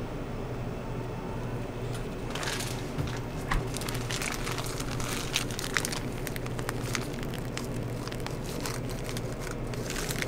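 Whipped cream squeezed from a disposable piping bag onto a crepe: the bag crinkles and crackles with many small pops, starting about two seconds in. A steady low hum runs underneath.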